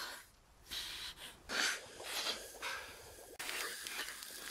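A person snorting and sniffling through the nose: several short, breathy snorts, the loudest about one and a half seconds in.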